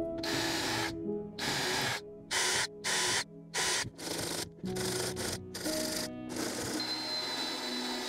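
Hand drill working into plywood: a rough rasping sound in repeated strokes about half a second long, with short pauses between them. Background music plays throughout.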